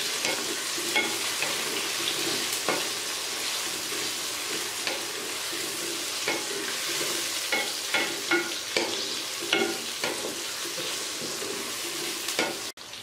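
Oil sizzling in a metal kadai as onions and slit green chillies are fried, with a wooden spatula stirring and scraping the pan in frequent light clicks. The sizzle cuts off suddenly near the end.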